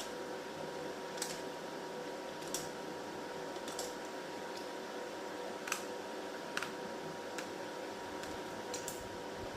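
Light, sharp clicks or taps at irregular intervals, about one a second, over a steady hum with a faint high whine.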